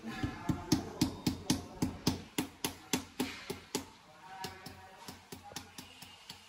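Rubber mallet tapping a ceramic floor tile to bed it down and level it: dull knocks at about four a second, loud for the first four seconds, then softer, sparser taps near the end.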